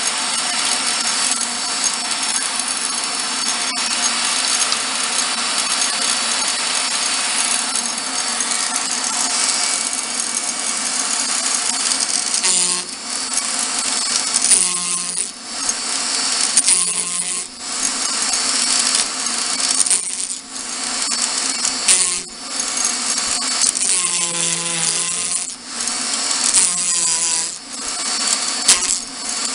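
Handheld rotary tool with a small cutter grinding the spiral groove of a twisted wooden spindle. The cutting noise is continuous at first; from about twelve seconds in it breaks off briefly every second or two as the cutter leaves the wood, leaving the motor's whine.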